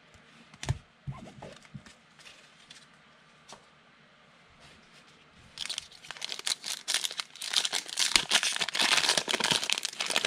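A light knock about a second in, then a foil trading-card pack being crinkled and torn open by hand from about halfway through, loud and continuous to the end.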